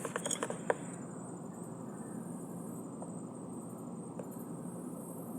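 A quick run of about six small clicks or taps in the first second, then steady low background noise with a faint, high, steady whine.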